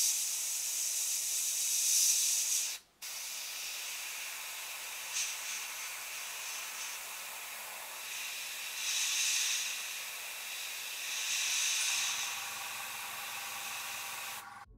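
Airbrush hissing steadily as it sprays thinned paint, with a short break about three seconds in and louder swells of spray around five, nine and eleven seconds.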